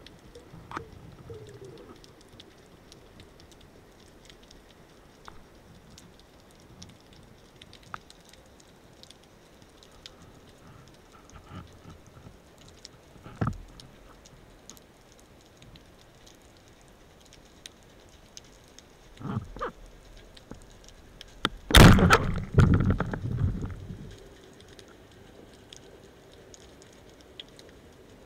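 Underwater sound picked up by a camera on a speargun: faint crackling and ticking throughout, a single sharp knock about halfway through, and a loud cluster of knocks and rattles lasting about two seconds some three-quarters of the way in.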